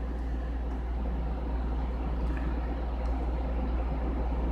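Steady low hum with an even background of noise, unchanging throughout; no distinct events.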